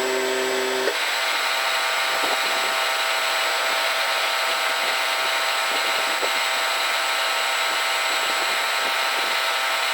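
Lathe machining a stainless steel bar: a steady cutting and motor noise with a high, thin whine. A lower hum stops about a second in.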